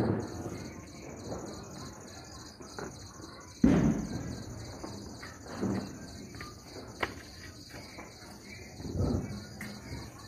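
Crickets chirping steadily at a high pitch. A single sudden loud bang comes about four seconds in, with softer thuds later.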